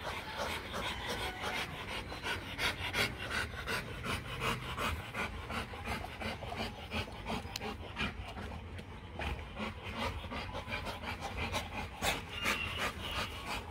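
Rottweiler panting, quick repeated breaths with some rustling movement close by.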